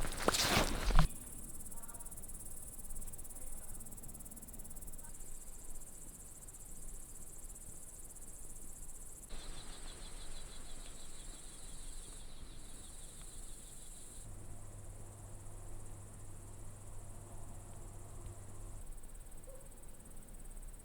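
Crickets and other insects chirping steadily at dusk, a high-pitched shimmer. For a few seconds around the middle, a lower, faster-pulsing insect chirp joins in, and the sound changes abruptly several times.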